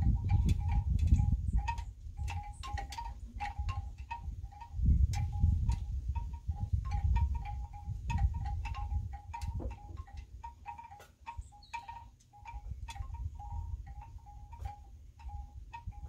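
Rapid, irregular light clinks, each with a brief ringing tone, over a low rumble that swells and fades.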